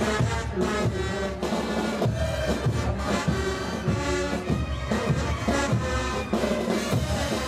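Brass band music: brass instruments playing a tune over a steady bass drum beat.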